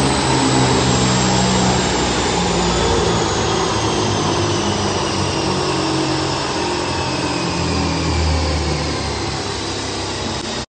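Turbocharged Mazda 13B rotary engine running loudly on the dyno, just after a power pull, with a high whine that slowly falls in pitch as it winds down.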